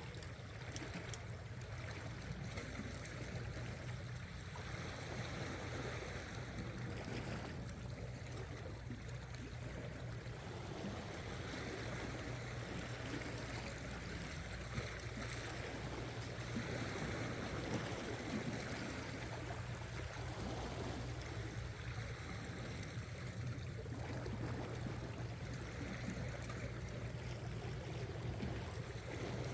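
Sea water washing and trickling around shore rocks, an even continuous wash, with a steady low hum running underneath.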